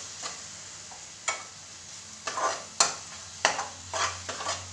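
A metal spoon stirring and scraping fiddlehead greens and egg around an aluminium pot, in about eight irregular strokes, over a faint sizzle of the food frying.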